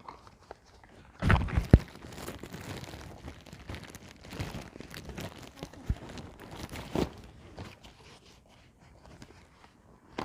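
Plastic packaging crinkling and tearing as items are handled, with a few sharp knocks about a second and a half in and scattered clicks later.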